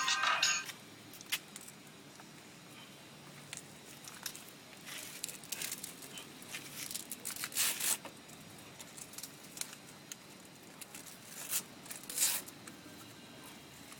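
A few short tearing rips and rustling as the Velcro straps of a moulded plastic dog leg brace are handled while it is fitted; the loudest rips come about 5, 8 and 12 seconds in. Flute music cuts off just at the start.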